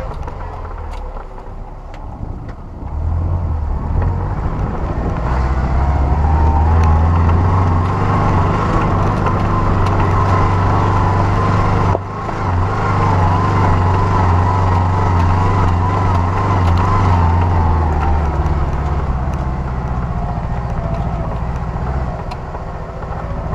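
Off-road 4x4's engine running steadily as it drives along a muddy track, a deep drone that builds up about three seconds in, heard from a camera mounted on the outside of the vehicle.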